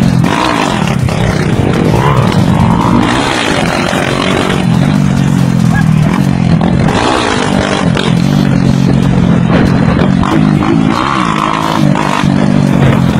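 Small motorcycle engine running steadily while riding along, its pitch now and then rising and falling a little.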